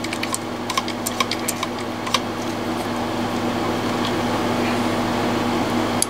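Light mechanical clicks from pumping the handle of a hand-held hydraulic crimper, a handful in the first two seconds, as its plunger moves forward. Under them runs a steady machine hum.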